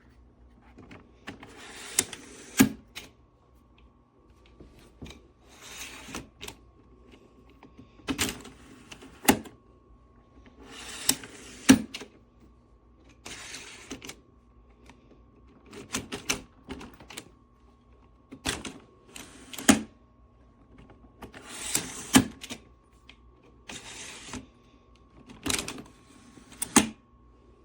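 Suitcase zipper being worked in short rasping strokes with sharp clicks, about one every two to three seconds, on a hardshell suitcase whose zipper has pulled away from its stitching. A faint steady hum runs underneath.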